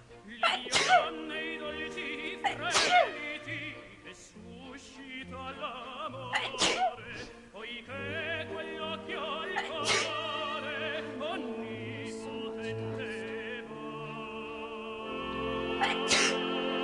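Operatic singing with a wide vibrato over held instrumental notes, broken by a handful of short, sharp noises, the loudest about one, three, seven, ten and sixteen seconds in.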